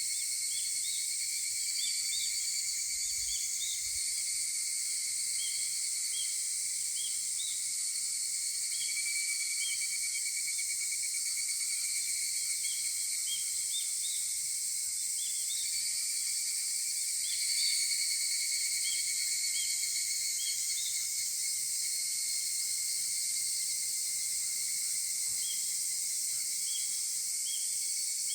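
A chorus of higurashi, the evening cicada (Tanna japonensis): many insects calling at once in a steady, shrill drone with short repeated notes overlapping, swelling slightly a little past the middle.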